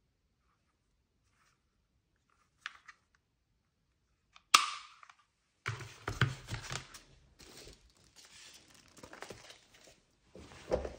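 Handling noise from an airsoft pistol being shown: a faint click, then a single sharp click about halfway through, followed by several seconds of rustling and handling.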